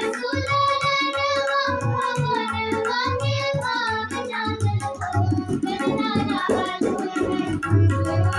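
Two girls singing a Sohar, a Maithili birth folk song, in unison. They are accompanied by a harmonium's held chords and a tabla keeping a steady beat with deep bass-drum strokes.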